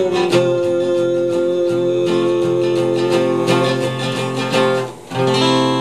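Acoustic guitar strummed through the song's closing bars, with no singing. The strumming breaks off briefly about five seconds in, then a last chord is struck and left ringing.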